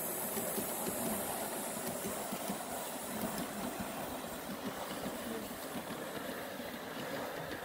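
Model steam locomotive, LMS Princess Coronation 'Duchess of Hamilton', running with its train of coaches along the track, with a high hiss that fades as the train draws away.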